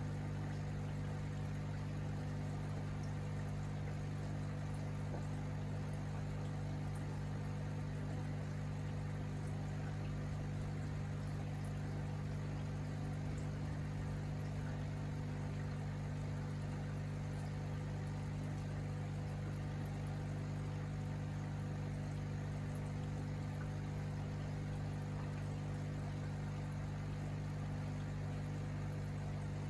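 Aquarium equipment running: a steady low electrical hum, as from an air pump or filter motor, with faint water bubbling over it.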